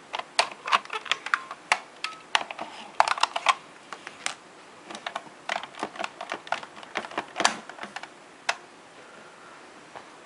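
Hard plastic clicks and rattles from a Kamen Rider Blade toy transformation belt buckle being gripped, turned and worked by hand: many irregular sharp clicks, densest early on, that stop about two seconds before the end.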